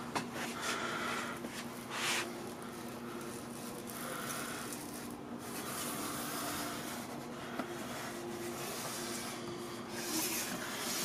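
Pizza-cutter-style iMac opening wheel scraping along the edge of the display glass as it cuts the adhesive holding the screen to the housing, worked back and forth. The scraping is louder about two seconds in and again near the end, over a faint steady hum.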